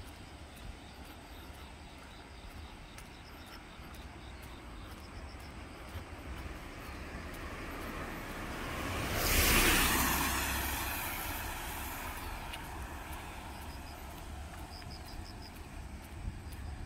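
A vehicle passing close by: its noise builds for several seconds, is loudest about nine and a half seconds in, then fades away.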